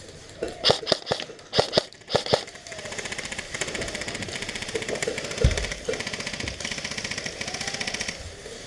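Airsoft rifle fire: a few sharp cracks in the first couple of seconds, then a long stretch of rapid, even full-auto ticking that stops shortly before the end. A single low thump comes about halfway through.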